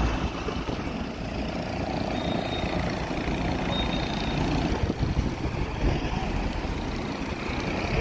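Steady low rumble of road traffic, with wind buffeting the microphone.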